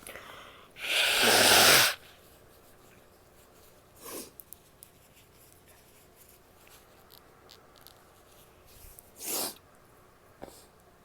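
A woman takes a short breath in, then lets out a loud, forceful blast of breath through the nose lasting about a second, cut off abruptly. Two short, quieter nasal sounds follow, one about three seconds later and one near the end.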